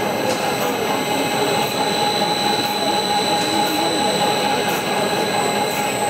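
Steady machine drone with a constant high-pitched whine over it, and faint voices chattering underneath.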